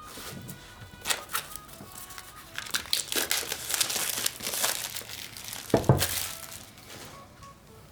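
Packaging on a tarot deck crinkling and rustling as it is unwrapped and handled, with many small clicks and one louder knock about six seconds in.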